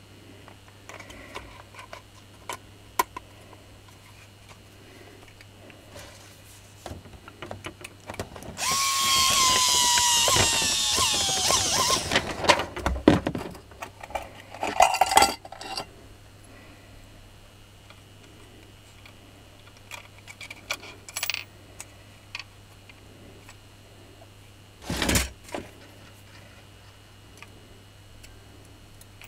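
A small electric power-tool motor runs for about three seconds with a whine that drops in pitch as it stops, amid clicks and knocks of a plastic tool housing being handled.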